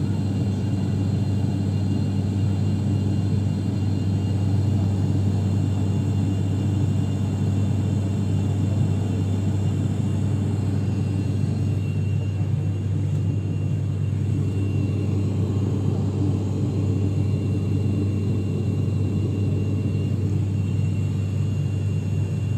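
Turboprop airliner in flight, heard inside the passenger cabin: the propellers and engines give a steady low drone with a strong hum and its overtones.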